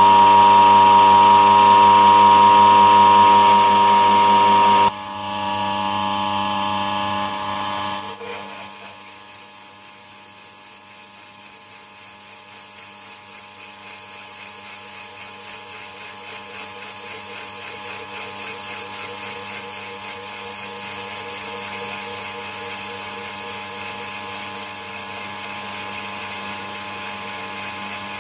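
Small metal lathe running at about 230 RPM while a form tool takes a 1 mm-deep radius cut into a tube bender die, a steady machine whine. The sound drops abruptly about five seconds in and changes again near eight seconds, then settles into quieter steady running with a high hiss from the cut.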